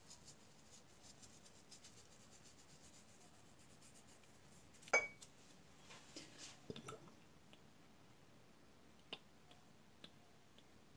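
Quiet room with a few small kitchen clinks and clicks: one sharper clink with a brief ring about five seconds in, a little cluster of light clicks a second or two later, and two faint ticks near the end.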